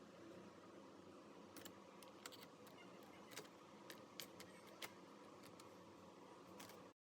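Faint scattered small clicks and taps of laptop parts being handled while a hard disk is fitted into the laptop, over quiet room tone; the sound cuts off suddenly near the end.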